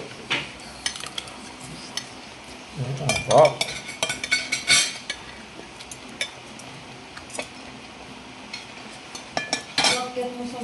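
Metal spoon and fork clinking and scraping against a ceramic plate while eating, in scattered short strikes, busiest a few seconds in and again near the end.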